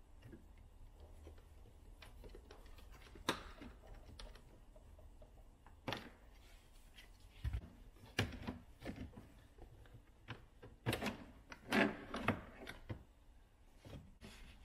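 Irregular clicks and knocks of plastic interior trim being handled and pried off the driver's-side lower dashboard of a VW Golf Mk7, coming more often in the second half.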